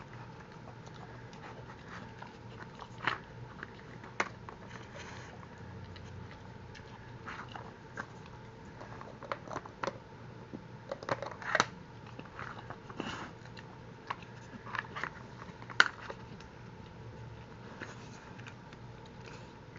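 A dog working a plastic treat-puzzle toy with its nose, with irregular plastic clicks and knocks as the covers shift and crunching as it eats the treats. A few sharper knocks stand out, around three and four seconds in, near the middle and about two thirds of the way through.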